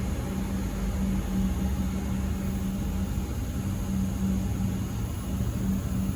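V/Line VLocity diesel railcar set (VL63 and VL120) running through the station with a steady low engine drone and rumble.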